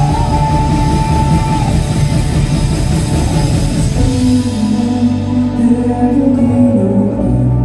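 Live worship band playing: a held high note over full band and drums, then about four seconds in the drums drop away and the song quietens to a held melody over steady bass and keys.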